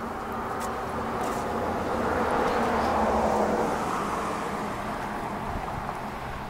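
A road vehicle passing by: its tyre and engine noise swells to a peak about halfway through and then fades away, over a steady low background hum.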